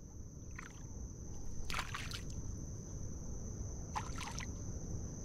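Hooked snapper thrashing at the water surface beside a kayak: a small splash about half a second in, then two stronger bursts of splashing around two seconds and around four seconds in.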